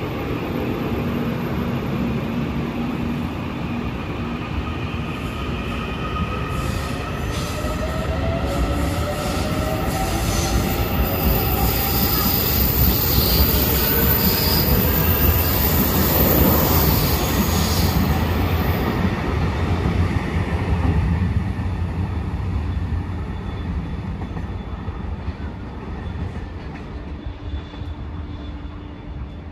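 Hyundai Rotem EMU900 electric multiple unit accelerating away from a station. Its traction motors give a whine that rises in pitch as it gathers speed, over heavy wheel-on-rail noise. The noise swells to its loudest about halfway through, then fades as the train pulls away.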